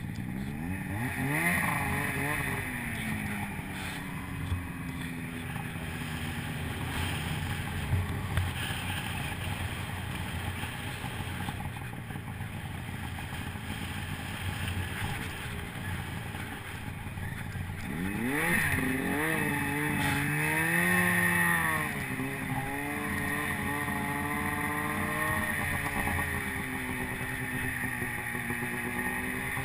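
Snowmobile engine under way in deep snow, revving up and down with the throttle: its pitch sweeps up sharply about a second in, runs lower and rougher through the middle, then rises and falls repeatedly over the second half. A few short knocks come through early on.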